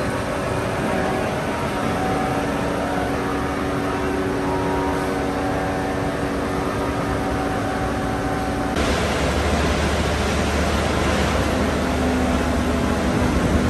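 Steady running noise of a steel rebar rolling mill's machinery: an even rushing noise with a few held hums. About nine seconds in it changes abruptly to a deeper, rumbling machine noise.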